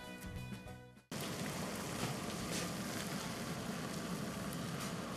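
Music fading out, then from about a second in a saucepan of water at a rolling boil on a gas hob: steady bubbling.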